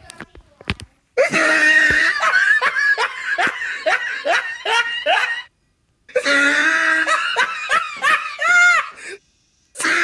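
A person laughing hard in long bouts of rapid "ha-ha-ha" pulses, the voice rising into high squeals near the end of the second bout. There are two bouts with a short silent gap between them, and a third begins right at the end. A few clicks sound in the first second.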